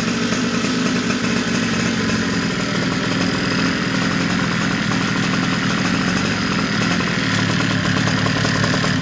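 Zenoah G260 26 cc two-stroke petrol engine in a quarter-scale RC car chassis running steadily at idle, then cutting out suddenly at the very end.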